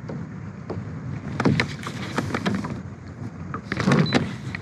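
Wind and water against a plastic kayak, a steady rough rush with clusters of light clicks and knocks about a second and a half in and again near the end.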